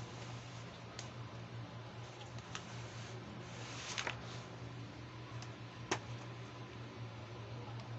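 Doll packaging being handled: a short rustle of the cardboard box and its plastic window about four seconds in, and a sharp click just before six seconds, with a few faint taps, over a steady low hum.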